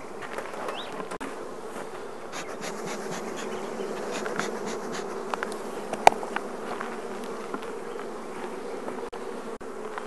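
Honeybee colony humming steadily in an opened Langstroth hive, its brood box uncovered. A few faint clicks and one sharp click about six seconds in.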